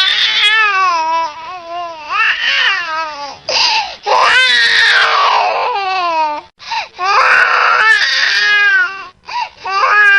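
A baby crying hard, in long wailing cries one to two seconds each with short gasps for breath between them.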